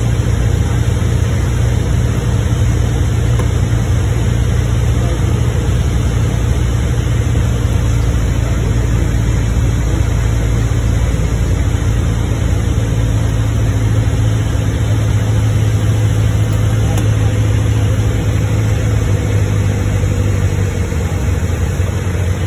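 Single-engine light aircraft's piston engine and propeller droning steadily, heard inside the cockpit on final approach, with air noise behind it. The drone settles slightly lower near the end.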